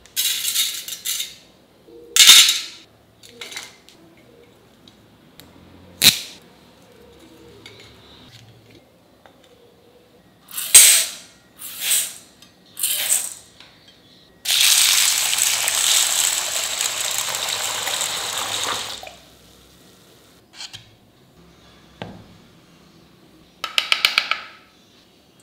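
A run of kitchen preparation sounds with steel utensils: short scrapes and clinks against steel bowls and plates, and water poured from a steel cup onto dry lentils. A steady rushing noise lasts about four seconds in the middle, and a quick rattle of clicks comes near the end.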